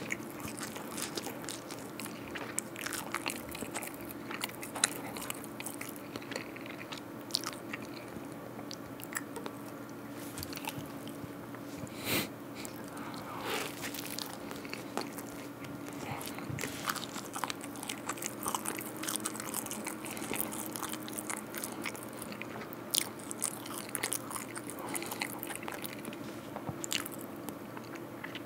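Close-miked biting and chewing of a soft white-bread sandwich filled with strawberry jam, cream and cheese: a string of small wet mouth clicks and smacks, with no talking.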